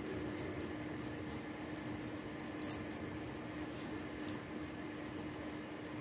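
Unakite stone chip beads clicking and rustling faintly against one another as the beaded strands are handled and pulled through, with a couple of slightly sharper clicks in the middle. A steady low background hum runs under it.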